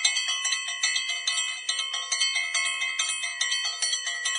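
Bright bell-like chiming jingle: quick repeated ringing strikes, about four or five a second, on the same high notes.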